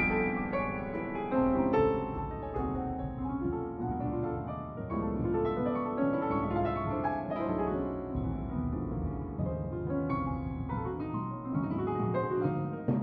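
Piano music, a steady stream of notes and chords played in a melodic line.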